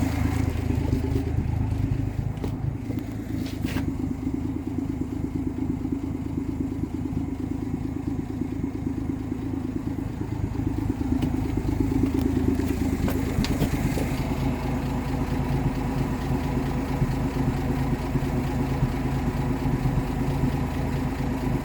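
1958 AMC Rambler Super engine idling steadily at about 800 RPM on a Weber carburettor, with a few faint clicks over the top. The idle runs evenly, without the misfire that a new distributor cap has cured, as the owner judges it.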